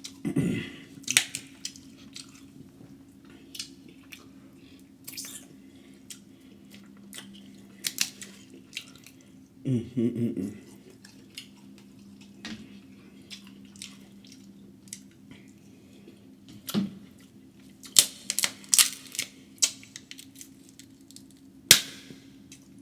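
Close-miked eating sounds: wet chewing and lip smacking, with scattered sharp clicks and crackles, a cluster of them near the end. Over a faint steady hum.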